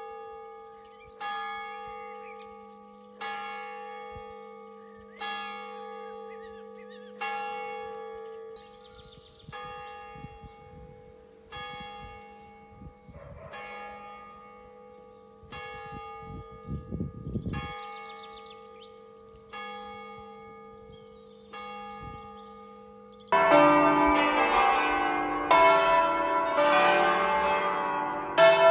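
A single church bell tolling slowly in mourning, one stroke about every two seconds, each note ringing on until the next. About 23 seconds in, several bells break in much louder and ring together.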